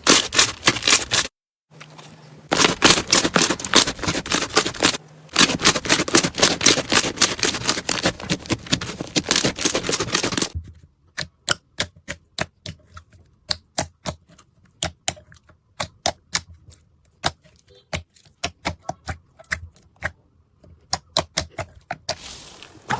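Slime being squeezed and pressed by hand, making dense, rapid crackling clicks in several short stretches. About halfway through it changes to sparser, single sharp pops and clicks.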